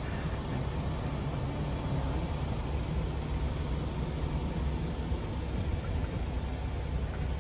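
Steady low rumble with a fainter hiss while riding in an open-sided aerial tram car moving along its cable.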